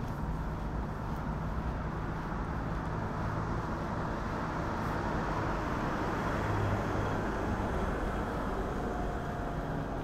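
City road traffic: steady tyre and engine noise, with a passing vehicle growing louder toward the middle and fading again.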